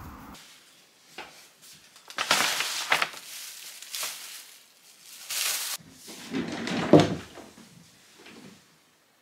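Paper shopping bag and its contents rustling and crinkling as they are handled, in several short spells, with a sharp knock near the end.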